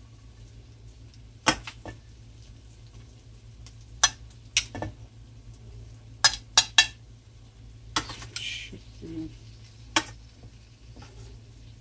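Serving tongs clinking against a stainless-steel skillet and a ceramic plate while noodles are lifted out and served. The sharp clinks come at irregular intervals, three in quick succession a little after six seconds in, with a brief scrape just after eight seconds, over a low steady hum.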